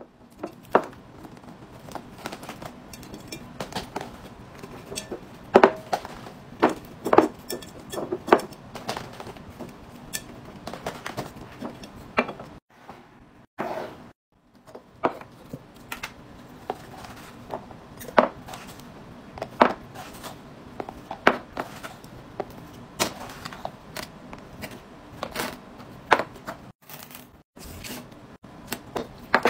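Glass storage jars, bamboo lids and plastic laundry containers being handled: an irregular series of sharp clicks, taps and knocks as lids are lifted, set down and closed, with two brief silent breaks.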